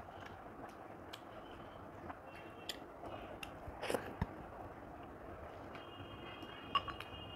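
Eating by hand into a clip-on microphone: fingers working rice and dal on a plate, then a mouthful taken and chewed, with scattered small clicks and mouth noises, the loudest about four seconds in.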